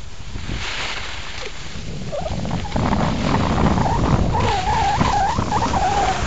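Wind buffeting the microphone and skis scraping over snow, growing louder about two seconds in. Over this comes a high, wavering, voice-like tone that warbles up and down several times a second, loudest in the last couple of seconds.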